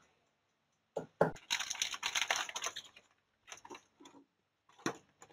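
Thin clear plastic clamshell box crackling and clicking as it is handled and pried open: a few sharp clicks, a dense run of crackling lasting about a second and a half, then scattered clicks.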